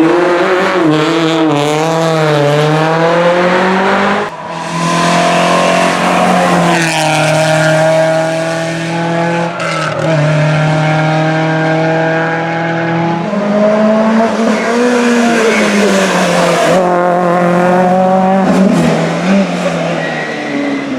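Rally car engines running at high revs with tyre squeal, the engine note wavering and changing pitch several times as the cars are driven hard through the stage.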